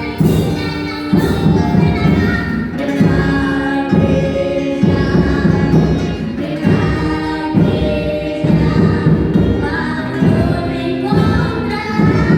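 Percussion band playing a worship hymn: drums beating a steady rhythm under a sung melody of choir-like voices.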